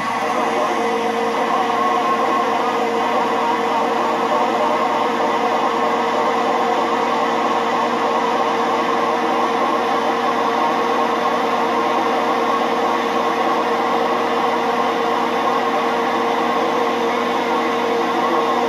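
Old base-station radio transceiver's speaker giving out a strong incoming transmission as a steady, loud rushing noise with a constant hum-like tone in it, the signal meter reading in the red near +30 dB.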